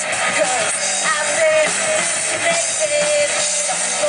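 Live amplified rock band: a woman sings the lead vocal over electric guitars and a drum kit.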